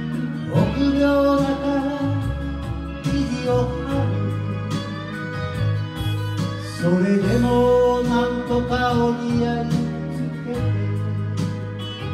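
Enka karaoke: a voice singing a slow melody over a backing track with guitar and bass.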